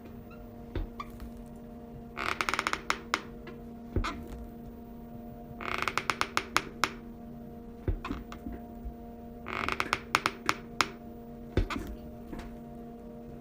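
A chair creaking in three drawn-out bursts of rapid ticking creaks, with single dull knocks between them over a steady low hum.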